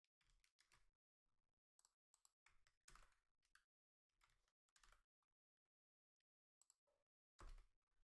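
Faint computer keyboard typing: irregular keystrokes and clicks, strongest about three seconds in and again near the end.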